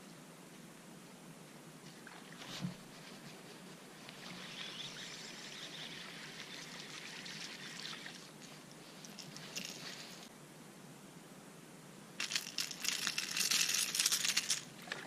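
A fishing reel being cranked with a soft hiss while a small bass is played on a spinning rod. About twelve seconds in there is a louder burst of splashing and crackling for about three seconds as the fish is lifted from the water at the boat's side.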